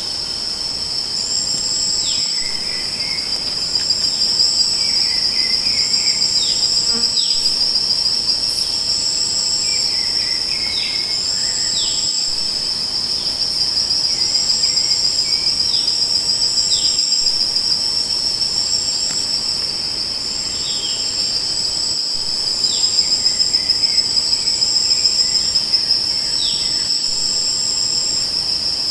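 Crickets trilling in a steady, unbroken chorus, with a second insect call pulsing in short high beats above it. Short falling chirps recur about every five seconds.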